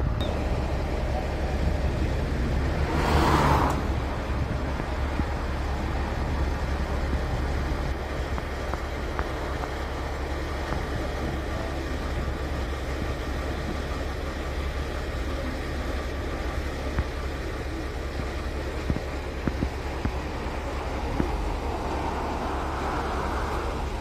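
Vehicle engines and road traffic: a steady low rumble, with a brief loud rush of noise about three seconds in and a swelling passing sound near the end.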